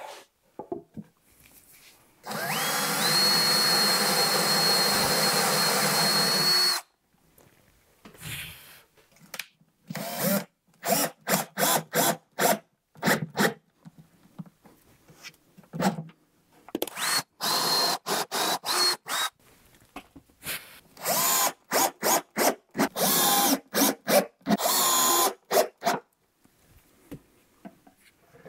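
Cordless drill-driver driving screws into the wooden top panel of a box. It first runs for about four and a half seconds at a steady high whine, then gives many short bursts in quick clusters as the screws are seated, and it stops a couple of seconds before the end.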